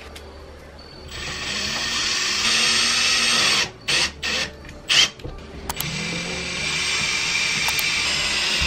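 Makita cordless drill running in two long runs, driving screws to fix a blind mounting bracket to the wall. A few sharp clicks come between the runs, and the motor spins up at the start of the second run.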